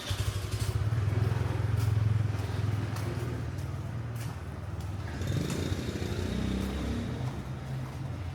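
A motor vehicle running on the road: a steady low engine and road rumble that comes up suddenly at the start and holds, with a faint thin whine in the second half.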